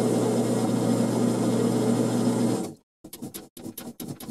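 Grizzly G4000 9x20 metal lathe running steadily with its chuck spinning, cutting off abruptly about two-thirds of the way through. Then a few short scraping clicks as a threading die is worked by hand on the part.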